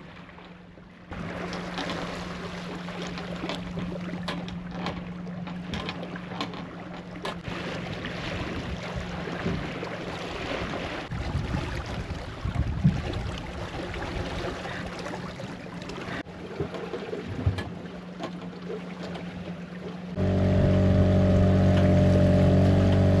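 Small sailboat under way: water splashing and rushing along the hull with wind, scattered knocks and a steady low hum. Near the end a much louder steady drone with several pitched tones starts suddenly.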